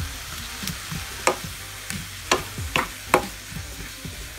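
Sliced leeks frying in a pan with a steady sizzle, stirred with a wooden spatula that knocks sharply against the pan four times.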